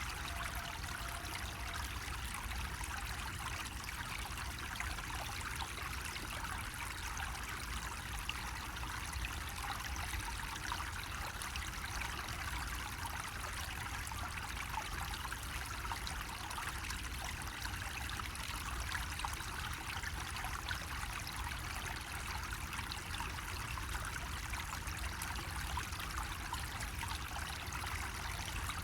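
Water running steadily from a bamboo faucet, a continuous trickling splash.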